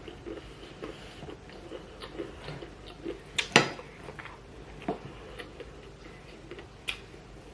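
Eating sounds: chewing with scattered small clicks, and one sharper click about three and a half seconds in and another near the end.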